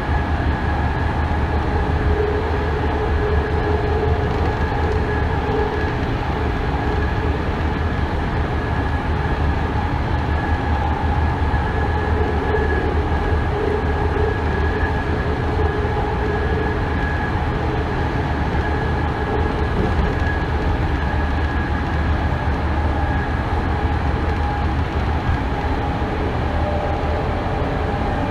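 BART A2 rapid-transit car running at speed on elevated track, heard from inside its cab. A steady low rumble with a constant high whine over it.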